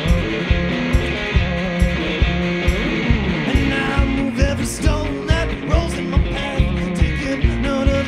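Live rock band with electric guitars, upright bass and a kick drum playing a steady beat; a man's singing comes in about halfway.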